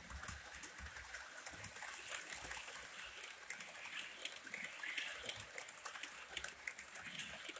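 Model passenger train rolling along the track: a faint, steady rattle with many irregular clicks from the cars' wheels on the rails.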